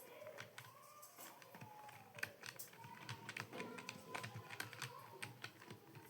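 Typing on a computer keyboard: quick, uneven key clicks, several a second.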